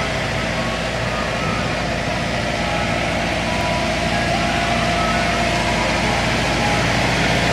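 Mister Softee ice cream truck's engine running in a steady drone as the truck moves slowly along. A few short, high beep-like tones sound over it now and then.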